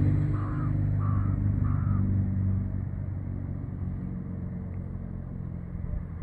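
A low engine rumble fading away, with three evenly spaced harsh calls in the first two seconds.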